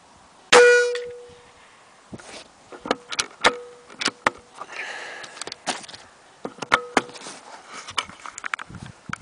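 A single shot from a Benjamin Marauder .22 PCP air rifle about half a second in: a sharp crack with a metallic ring that dies away over about a second. It is followed by scattered clicks and clinks as the rifle is handled and its bolt is cycled to load the next pellet.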